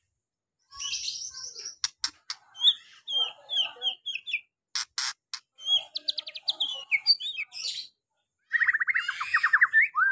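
White-rumped shama (murai batu) singing a varied song after a short silence: a harsh chattering burst, sharp clicks, a series of clear whistled notes, and a fast rattling trill near the end.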